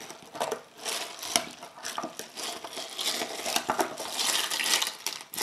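A metal bar spoon stirring crushed ice in a tall glass of long drink, with many small clinks of ice and spoon against the glass and crunching of the ice.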